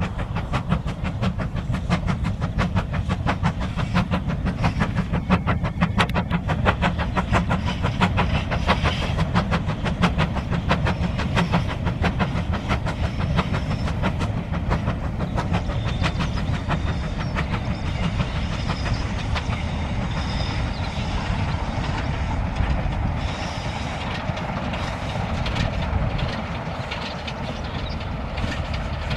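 Steam locomotive working past with a train of coaches, its exhaust beats coming fast and even, then fading after about halfway as the coaches roll by with a steady clickety-clack of wheels on the rails.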